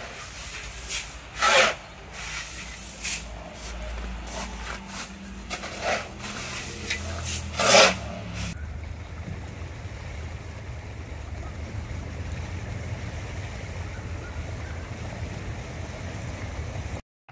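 A metal shovel scraping and scooping through piled hailstones beside a car, in a series of sharp strokes, the loudest near the start and about eight seconds in. About halfway through, this gives way to a steady low rushing noise.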